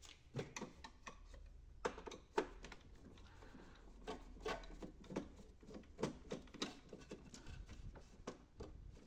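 Screwdriver turning out small screws from an HP Officejet 6500 printer's plastic frame: a string of faint, irregular clicks and ticks, with a couple of sharper ones about two seconds in.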